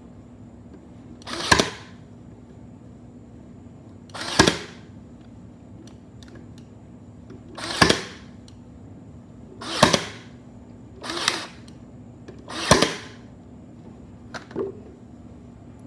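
Ryobi P320 AirStrike 18V cordless 18-gauge brad nailer driving nails into wood: six sharp shots at uneven gaps of one to three seconds, then a fainter click near the end.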